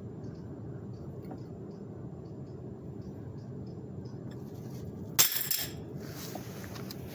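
A sharp metallic clink and rattle about five seconds in, lasting about half a second, from the thin metal tubes of a folding frame knocking together as it is handled. A steady low background noise runs under it.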